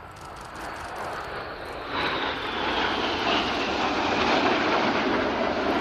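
Jet engines of a formation of BAE Hawk T1 jets passing overhead, the roar building and getting sharply louder about two seconds in, with a faint whine falling in pitch as they go by.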